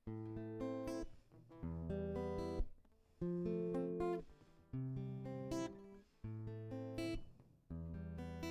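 Acoustic guitar playing the instrumental intro of a song: chords strummed and let ring, a new chord about every second and a half.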